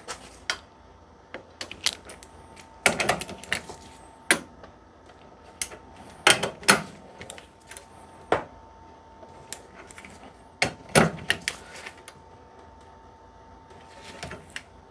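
Sharp metallic clicks, some single and some in quick runs: a ratcheting torque wrench with a 13/16-inch socket tightening the bolts that join the two halves of a C3 Corvette's lip-seal front brake caliper to 130 foot-pounds.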